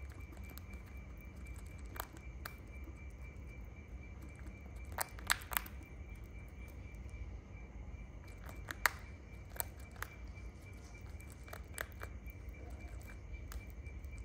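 A steady, high, finely pulsing insect trill over a low rumble, broken by scattered sharp clicks and snaps: a cluster about five seconds in and the loudest single snap near nine seconds.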